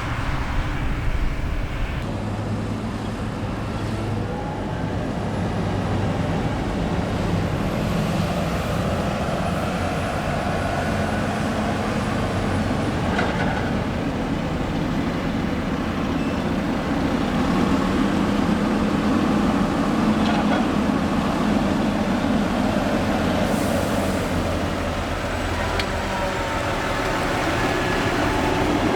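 Heavy diesel farm machinery running steadily, with engine tones that rise and fall a little as it works under load.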